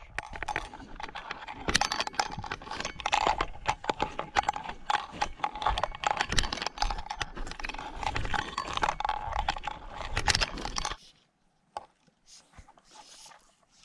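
Footsteps crunching through dry grass and low brush at a walking pace, stopping suddenly about eleven seconds in; faint rustles follow.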